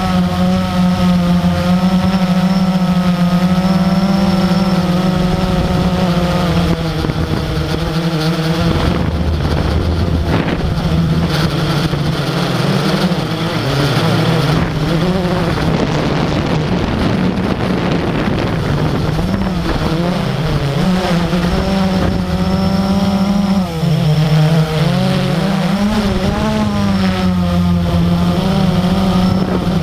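Radio-controlled model aircraft's motor and propeller, heard from a camera on board: a steady drone whose pitch dips and wavers with throttle changes, about a third of the way in and again near the end, over rushing wind noise.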